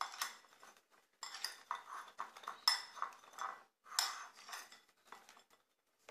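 A metal spoon clinking and scraping against steel spice bowls and a plate in a series of short, irregular clinks, as turmeric and salt are spooned over halved parwal.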